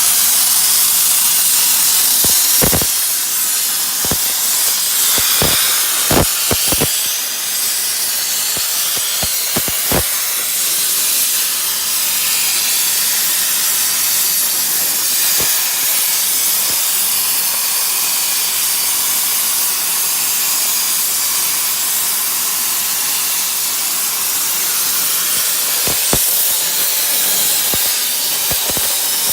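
CNC plasma torch cutting steel sheet: a steady, loud hiss of the cutting arc and its gas, with sharp clicks now and then, most of them in the first ten seconds and a few more near the end.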